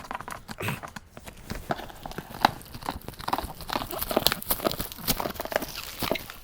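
Packaging being handled during an unboxing: rustling and crinkling plastic and cardboard with irregular small knocks and clicks.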